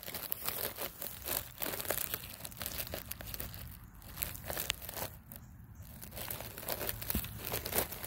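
Dry, irregular crinkling and crackling close to the microphone, many small crackles in quick uneven succession, the handling-and-rustle noise of a phone held low over dry pine straw.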